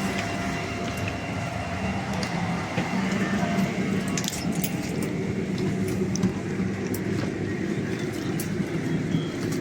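Boeing 767 cabin during boarding: a steady low hum with scattered small clicks and clinks from passengers settling in and stowing bags.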